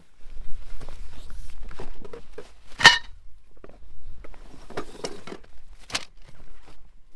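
Handling noises: scattered knocks and rustles, with one sharp, ringing clink about three seconds in and another knock near the end.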